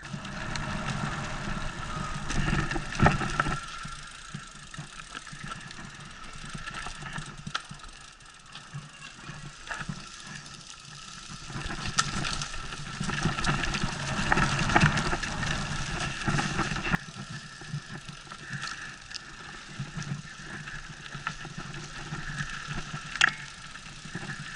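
Mountain bike descending a dirt trail, heard from a camera on the bike or rider: steady rolling and mechanical buzz with rattles. It swells in the first few seconds and again from about twelve to seventeen seconds, broken by sharp knocks from bumps, the loudest about three seconds in and near the end.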